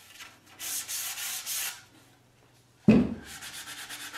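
Sandpaper rubbing by hand along the edge of a knotty pine cabinet door, a hissy run of strokes lasting about a second, knocking off burrs and fuzz left by the router. Near three seconds in comes one loud knock as the door is set down on the bench, then quick, rapid sanding strokes start again.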